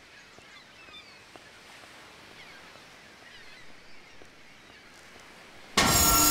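Faint outdoor ambience with small birds chirping. Near the end a loud, steady sound with several held tones cuts in suddenly.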